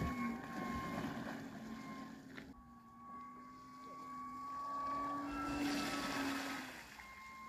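An eFoil's hydrofoil whistling, a steady high tone with a fainter lower hum, over rushing water and spray that swells near the end. The whistle comes from the old Gen 1 Waydoo Flyer ONE stabilizer, shimmed at its front bolt, paired with an Axis Spitfire 620 front wing; the owner believes the change of stabilizer angle is partly behind it.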